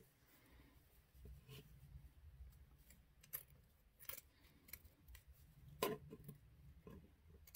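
Scissors making a few faint, separate snips through cotton bandana fabric, the loudest a little before the end; the scissors are kind of dull.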